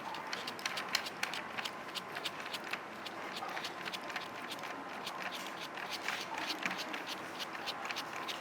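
Small irregular clicks and scrapes as a screw is driven by hand to tighten a metal idler wheel onto the chassis of a Heng Long RC tank.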